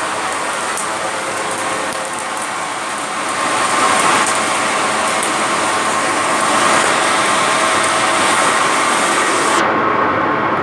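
A small lead-smelting blast furnace running: its air blast and fire make a loud, steady rushing noise with a few sharp ticks. The high hiss cuts off suddenly about nine and a half seconds in.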